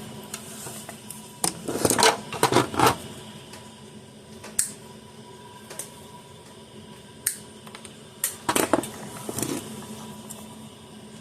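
Scattered clicks, taps and rustles of hands handling small parts, wires and tools on a workbench, over a faint steady hum.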